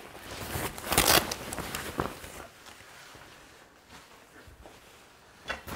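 Rustling and crinkling of a waterproof Gore-Tex jacket being handled, loudest about a second in and dying away after about two seconds, with a short rustle just before the end.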